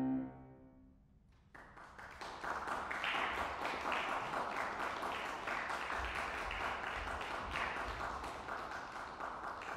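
The closing chord of a Steinway grand piano dies away in the first half second. After about a second of hush, an audience breaks into steady applause that keeps on to the end.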